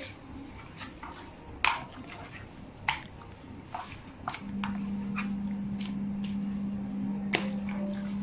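Wet squishing and sharp clicks of hands rubbing chopped garlic and seasoning into a raw split fish. A steady low hum comes in about halfway through.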